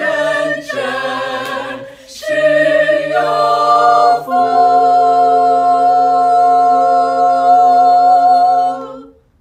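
Small mixed group of men and women singing a Chinese hymn unaccompanied, a few changing notes and then a long held final chord that stops about nine seconds in.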